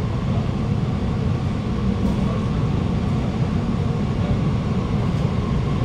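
Cabin running noise of an Alstom Movia R151 metro train travelling at speed, heard from inside the carriage: a steady low rumble of wheels on rail, with a faint steady higher tone over it.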